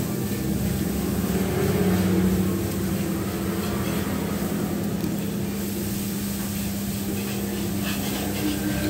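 Steady low mechanical hum, with a few faint clinks of a spoon and fork on a plate near the end.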